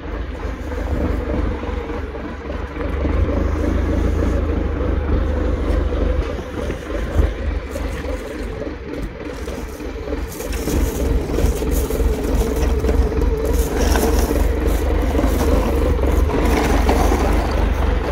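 Forklift engine running steadily, growing louder about ten seconds in, with some scraping of wooden pallets being handled.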